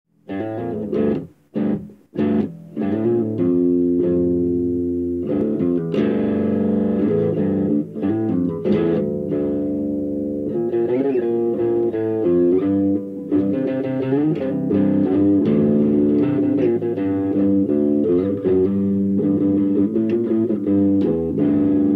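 Electric bass guitar played solo: a few short plucked notes with gaps between them, then an unbroken run of notes from about two and a half seconds in.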